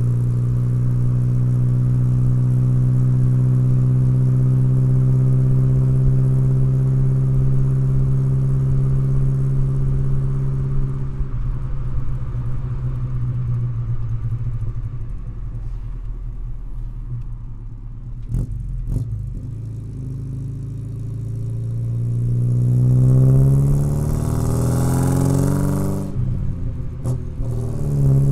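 1970 Alfa Romeo Giulia 1300 TI's 1.3-litre twin-cam four-cylinder engine running while parked: held at steady raised revs for about ten seconds, then settling to a lower idle. Near the end the throttle is blipped, the revs rising and falling, and a couple of sharp clicks are heard.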